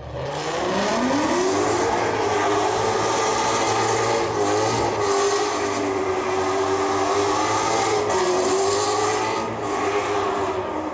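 A car engine revs up over the first couple of seconds, then is held at high revs with small wavers during a burnout, with a loud hiss of spinning tyres throughout.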